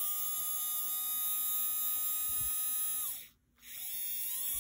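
The open-frame electric motor of a 1950s Penn Line HO-scale GG1, freshly oiled, running on test with a steady high whine. About three seconds in the power is cut: the whine falls in pitch and stops, then it starts again and rises back up to speed.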